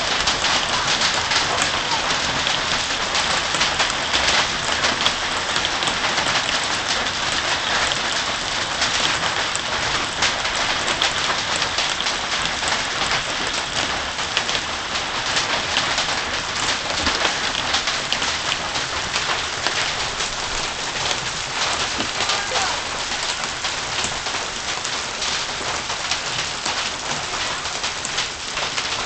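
A hailstorm, hail and rain pelting down in a dense steady patter full of sharp ticks of stones striking, easing slightly toward the end.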